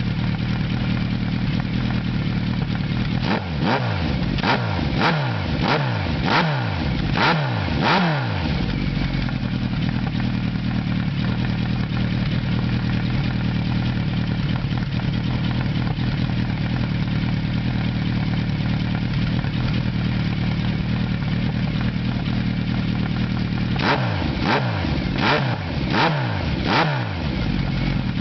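Motorcycle exhaust through an Imperial short carbon aftermarket silencer, a very loud note: the engine idles steadily, with a quick run of throttle blips, each revving up and dropping straight back, about three seconds in and again near the end.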